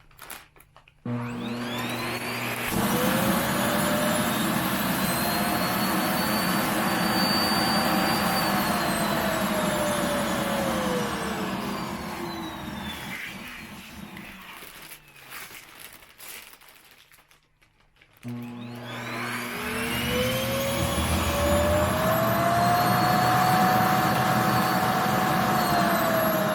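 Vacuum cleaner switched on about a second in, drawing the air out of a plastic futon compression bag. Its motor whine rises and holds steady, then glides down and stops around the middle. It starts again and rises to a steady whine.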